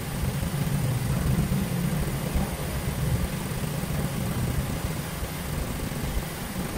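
Toyota Lite Ace's four-cylinder engine idling with the air conditioning switched on, heard from inside the cab: a steady low hum under an even rush of air from the dash vents.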